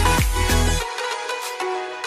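Electronic dance music. The bass and kick-drum beat drops out about a second in, leaving held higher synth notes.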